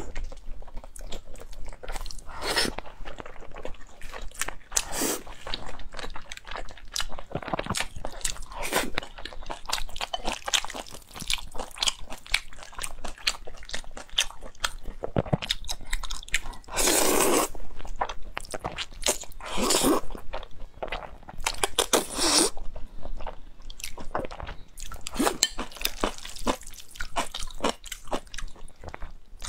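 Close-miked eating sounds: wet chewing and lip-smacking clicks of someone eating glazed pork belly and stir-fried noodles. Several louder slurps of noodles come in the second half.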